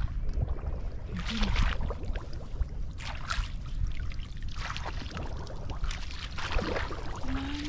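Boots wading through shallow floodwater and mud, sloshing and splashing in about four separate bouts of steps over a steady low rumble.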